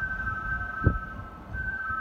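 Repeating electronic warning tone: two steady high notes sound together, break off about a second in and start again about half a second later. Under it is a low rumbling noise, with a single thump just under a second in.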